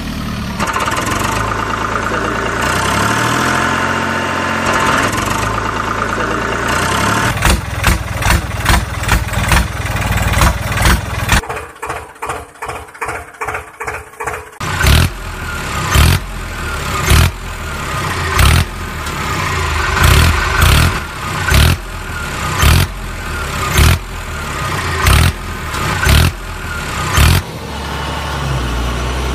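Tractor engine sound effect: a diesel engine running steadily, then chugging in regular pulses about twice a second from around seven seconds in. After a brief quieter stretch it goes on in louder surges about once a second, like a tractor labouring under a pull.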